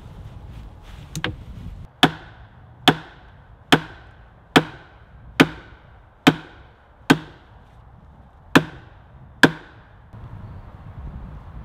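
Hammer blows on wood: a couple of light taps, then nine hard, even strikes a little under a second apart, with one beat skipped near the end, driving wooden pegs into a split-log plank.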